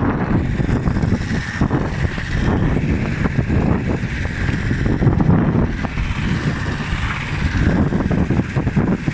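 Strong wind blasting the microphone: a loud, low, continuous noise that swells and dips in gusts.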